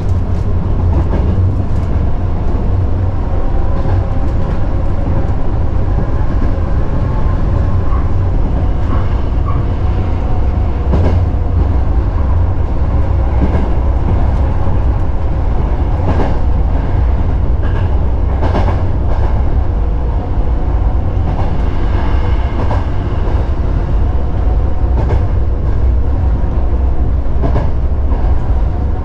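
Sanyo Electric Railway 3000-series electric train running, heard from inside the driver's cab: a steady low rumble of the running gear with a faint hum of tones, and scattered sharp clacks of the wheels over the rails.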